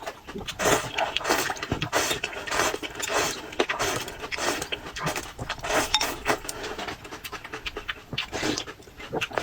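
Close-miked eating sounds: wet chewing and crunching with quick clicks, mixed with repeated heavy, breathy huffs, as from someone eating very spicy food.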